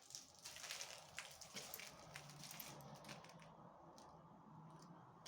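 Faint gritty scraping and crunching of a semi-dry sand-cement screed mix being worked, with a faint low hum that comes and goes.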